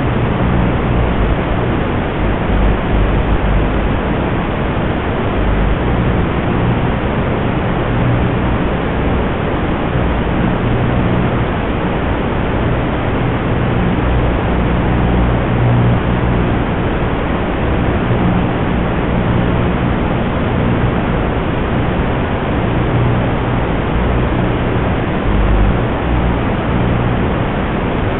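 Steady loud hiss of analog FPV video-receiver static as recorded by the goggle DVR, with a low hum underneath that swells and fades.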